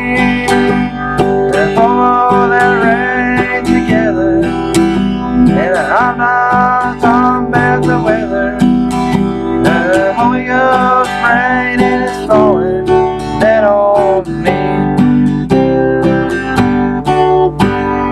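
Acoustic guitar strummed in an even rhythm, with a melody line above it that slides and bends between notes.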